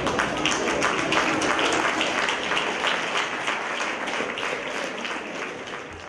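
Audience applauding, many hands clapping together, the applause dying away near the end.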